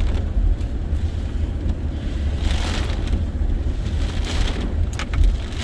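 Hurricane-force gusts buffeting the microphone: a constant heavy low rumble with a swell of rushing hiss about two and a half seconds in. A few short knocks near the end, the loudest about five seconds in.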